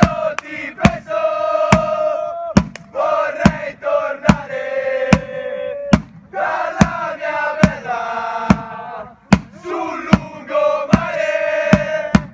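Small group of football supporters chanting in unison, long sung phrases over sharp regular beats about every 0.8 seconds that keep time.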